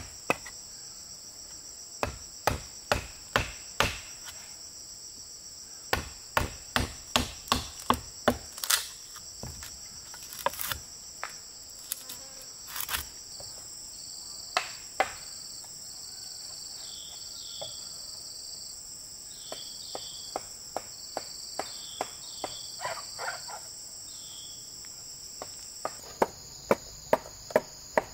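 Runs of sharp chopping or hammering blows, about three a second, stopping and starting, with a quieter stretch of only scattered knocks in the middle. Under them is a steady, high-pitched drone of crickets and other insects, with a few short chirps in the quiet stretch.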